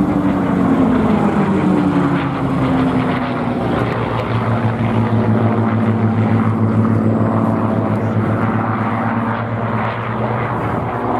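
Two P-51 Mustangs' Packard Merlin V-12 engines and propellers running in flight overhead, a steady engine drone whose pitch drops over the first couple of seconds as the aircraft pass, then holds level.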